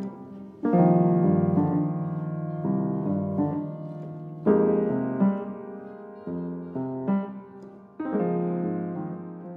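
Piano music: slow, sustained chords, with a fresh chord struck about every three to four seconds and left to ring and fade.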